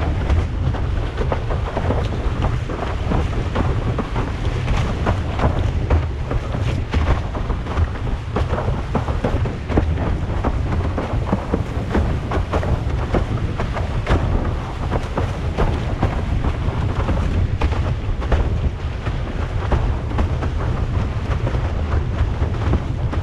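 Wind buffeting an action camera's microphone in a deep, steady rumble, over the rushing hiss of water under a windsurf board planing at speed, with many short splashes and slaps from spray and chop.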